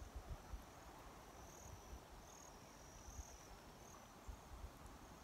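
Faint outdoor ambience: short high-pitched insect trills repeating at irregular intervals, over low gusts of wind rumbling on the microphone.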